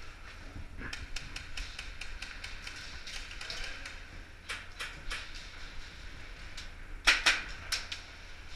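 Airsoft gunfire in a building: a run of light, rapid clicks, then a few louder sharp cracks about four and a half seconds and seven seconds in.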